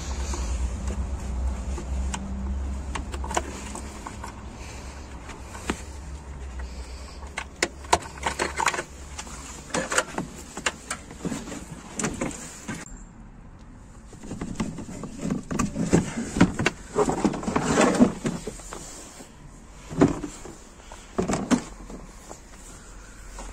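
Plastic rear bumper cover of a Mazda RX-8 being unclipped and pulled off by hand: scattered clicks and knocks of its push-pin clips and fasteners, with bursts of plastic scraping and rattling.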